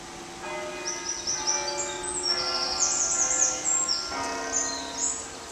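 Church bells ringing, several bells struck one after another with their tones hanging and overlapping. Birds chirp at the same time, loudest through the middle.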